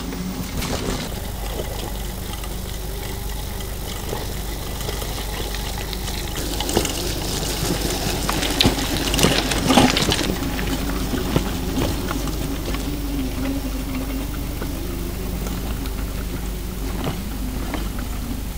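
Heavy rain with running, splashing water, loudest about eight to ten seconds in, over a steady low rumble.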